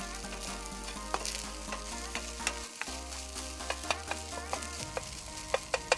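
Food sizzling as it fries in a frying pan on a portable gas camping stove, with a spatula stirring it and scraping and clicking against the pan. The clicks come more often in the second half.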